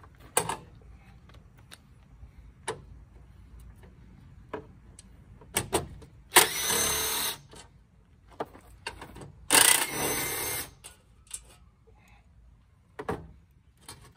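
Cordless drill spinning fasteners out of the radiator support, in two runs of about a second each, the first a little past the middle and the second soon after. Short metallic clinks and knocks from handling tools and parts come in between.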